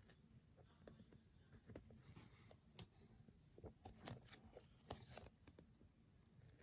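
Faint scratching and crinkling of a tool picking at the shrink-wrap seams on an AirPods box, with a few louder scrapes about four and five seconds in.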